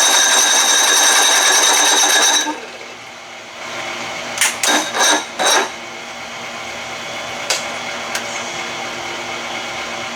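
Evinrude 55 hp outboard's electric starter motor spinning with a steady high whine for about two and a half seconds without the engine firing, then four short bursts as the key is tried again, and two clicks near the end. The owner blames a faulty starter, not the battery.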